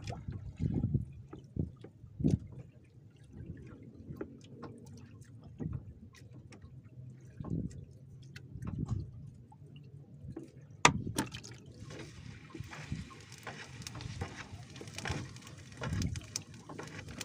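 Water sloshing and dripping as a wet fishing net is hauled by hand over the side of a small boat, with small knocks against the hull. One sharp knock comes about eleven seconds in, and a steady hiss follows it.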